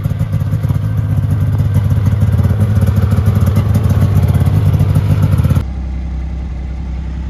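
Snowmobile engine running close by with a fast, even pulsing beat. About five and a half seconds in, the sound cuts abruptly to a quieter, steadier low engine hum.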